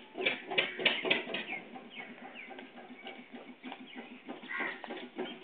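Chickens clucking in a quick run of short calls, busiest in the first second or so.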